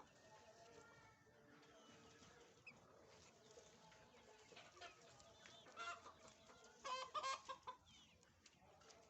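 Fayoumi chickens clucking faintly, with two louder bursts of calls about six and seven seconds in.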